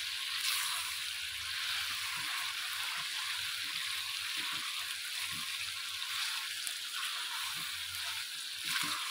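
Chicken pieces frying in hot oil in a wok, a steady sizzle while a wooden spatula turns them. The sizzle is wet and spattery because the freshly added chicken is still giving off water into the oil.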